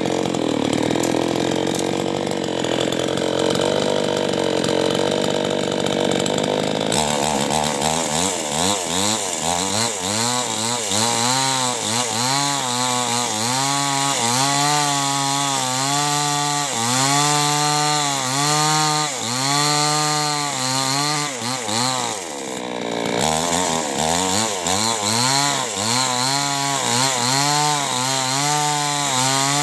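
Two-stroke chainsaw cutting wood. The engine note is dense and even for the first several seconds. It then turns into a clear note that rises and dips about once a second, with a deeper drop and climb a little past two-thirds through.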